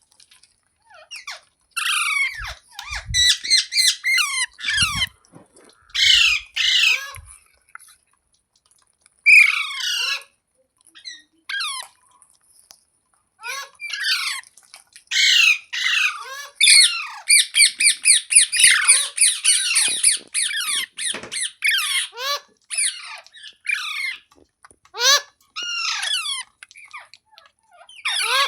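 Green ringneck parrot (rose-ringed parakeet) squawking: many short, sharp screeching calls that fall in pitch, in bouts with short pauses, and a fast run of calls about halfway through.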